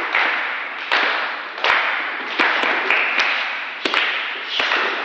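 A group clapping in unison to a steady beat, about one clap every three-quarters of a second, each clap ringing briefly in a hard-floored hall.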